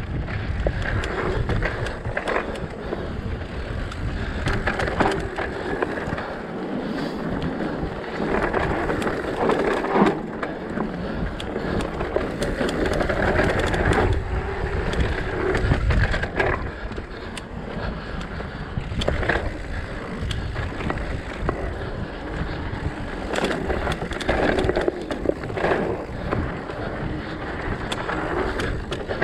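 Mountain bike riding down a dirt singletrack: the tyres crunch over dirt and small stones, with frequent clicks and knocks as the bike rattles over bumps. Wind buffets the microphone with a gusty low rumble.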